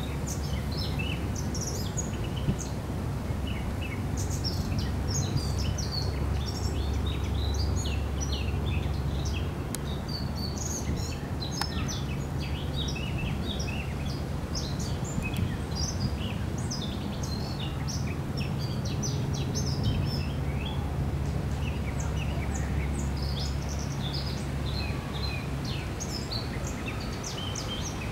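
Small songbirds chirping and twittering in quick short calls throughout, over a low steady engine drone from a passing boat.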